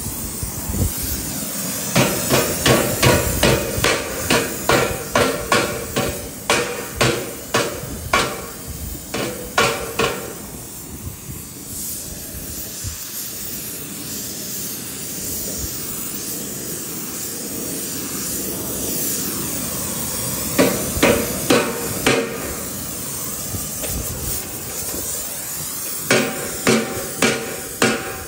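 Hammer blows ringing on a steel exhaust pipe as it is shaped to fit, over the steady hiss of an oxy-acetylene torch. The blows come about two a second for the first ten seconds, again in a short run around twenty seconds, and once more near the end.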